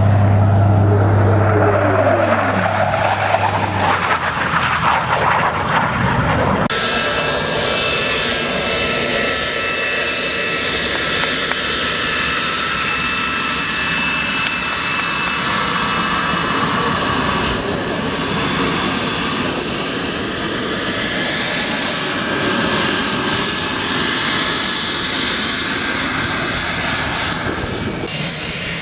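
A jet flies past, its engine note falling in pitch as it goes by. Then comes the loud, steady rush and high whine of an Aero L-39 Albatros's turbofan as the jet trainer taxis close by, continuing after about 18 s with less of the whine.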